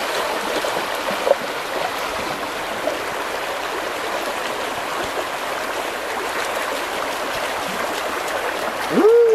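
Shallow rocky river running, a steady rush of water over stones, with a few small splashes as a dog wades through it. A pitched voice rises, louder than the water, just before the end.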